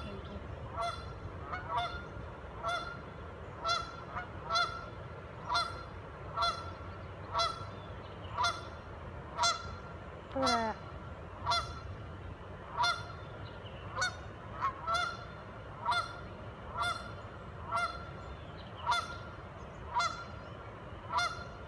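Canada geese honking in a steady, regular run, about one honk a second: alarm calls at a person coming close to them.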